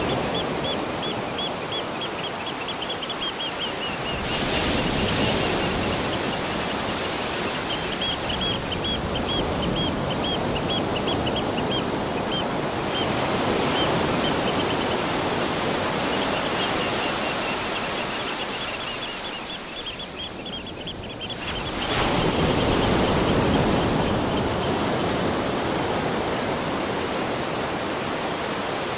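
Ocean surf washing in waves, the rush swelling and easing several times. Runs of a rapid, high chirping trill come and go over it.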